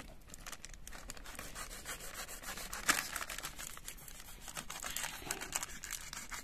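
A plastic flour packet crinkling and rustling as it is handled, with irregular small crackles and one sharper crackle about three seconds in.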